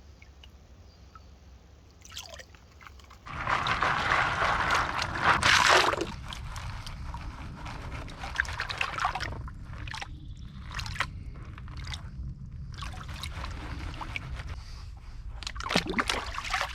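Shallow stream water sloshing and trickling, with a louder stretch of splashing about three seconds in that lasts a few seconds, then steadier sloshing with scattered sharp knocks.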